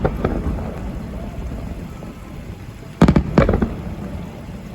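Aerial fireworks shells bursting: a low rumble dies away, then a quick cluster of three or four sharp bangs about three seconds in, each trailing off in a rumble.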